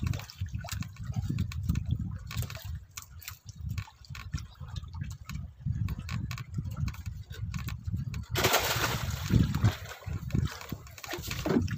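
Water sloshing and trickling with scattered knocks, then a louder splashing rush starting about eight seconds in.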